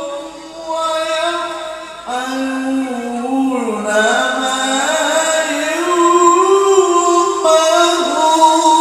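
Solo male voice chanting an unaccompanied Islamic recitation in the ornamented Arabic tilawah style, held in long notes that glide between pitches. The line climbs higher and louder from about four seconds in.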